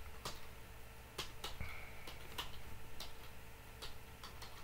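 Faint keystrokes on a computer keyboard: a dozen or so separate clicks at uneven intervals over a low steady hum.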